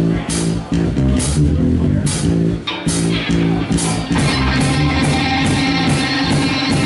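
Live rock band playing the instrumental opening of a song: electric guitar riff over bass guitar and drums with regular cymbal hits. The sound fills out and gets denser about four seconds in.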